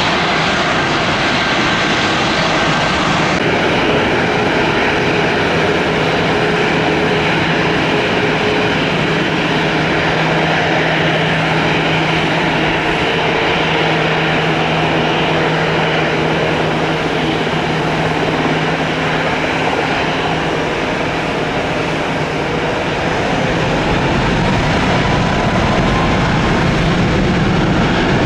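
Jet engine noise of a landed airliner on the runway, then, after a cut about three seconds in, a Southwest Boeing 737-8 MAX's CFM LEAP-1B turbofans running at taxi power as it turns onto the runway for take-off: a steady rushing whine that grows a little louder and deeper near the end.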